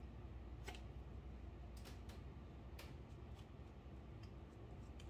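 A few faint, scattered light clicks and taps from hands and a glue brush working over a stiff, dried palm husk, over a low steady hum.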